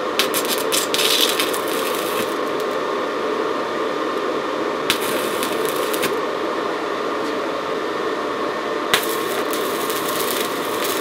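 Stick-welding arc running on the steel of an old adjustable wrench: a steady crackling hiss, denser in the first couple of seconds and again near the end, with a sharp pop about five seconds in and another about nine seconds in.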